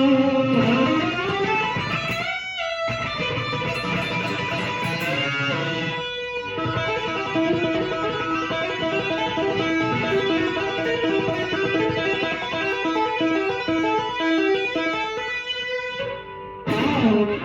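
Electric guitar music: bent, gliding notes in the first few seconds, then a quick repeating run of notes that stops about a second before the end.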